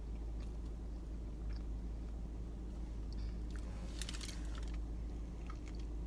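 A person chewing a mouthful of McDonald's cheeseburger with small wet clicks, and a brief crackly burst about four seconds in, over a steady low rumble.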